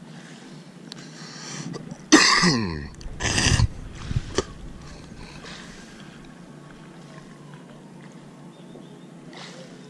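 A man coughing and clearing his throat: a loud hoarse burst about two seconds in, a shorter one about a second later, then two light clicks.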